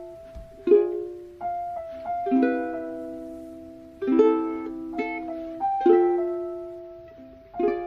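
Background music: soft plucked-string chords, each struck and left to ring out and fade before the next.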